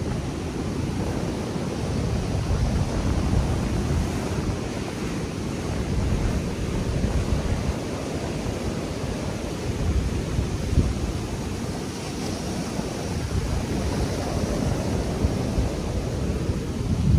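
Ocean surf breaking over a rocky reef shore, a steady wash of noise, with wind buffeting the microphone.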